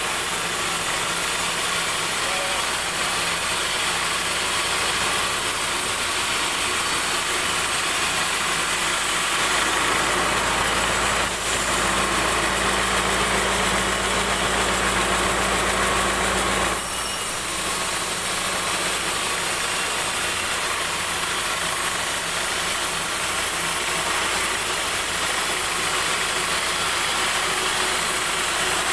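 Sawmill band saw running and ripping a teak board lengthwise: a steady noise of the cut over the machine's hum. From about 11 to 17 seconds in, a deeper hum grows stronger, then drops back.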